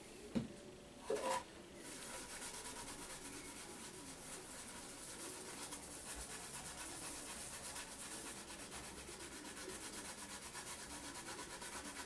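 Acetone-dampened cloth rubbed briskly over an ABS plastic GPO 746 telephone case, a steady rapid scrubbing hiss as the solvent softens and strips the faded surface layer. A couple of short knocks come about a second in.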